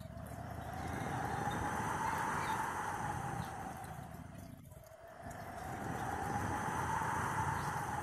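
Tropical-storm wind gusting through palm and banana trees, swelling and easing twice. A whistling tone rises in pitch as each gust builds and falls as it dies away.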